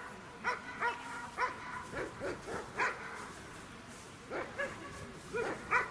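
A dog barking: short single barks at irregular gaps, with a quicker run of them near the end.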